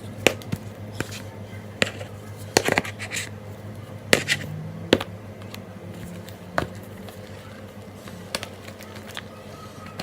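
Thickening fluffy slime being stirred in a bowl, giving a series of irregular clicks and snaps as it comes together and gets harder to mix, over a steady low hum.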